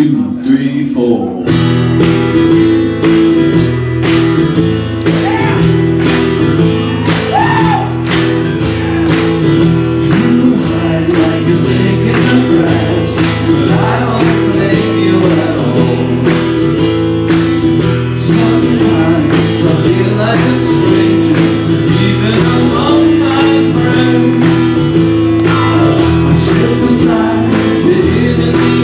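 Live acoustic band: a spoken count of "one, two, three, four", then acoustic guitars start strumming together about a second and a half in, with a man singing over them.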